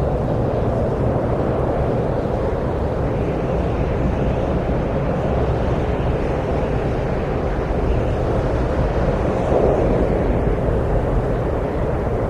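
Wind blowing steadily as a low rushing noise, swelling slightly near the end.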